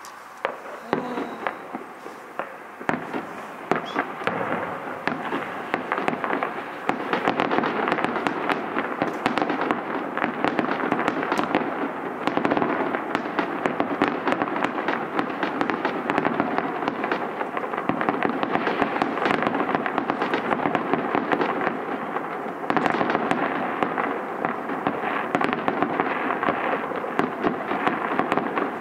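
Fireworks going off in a dense, continuous barrage of rapid pops and crackles, growing thicker about three seconds in.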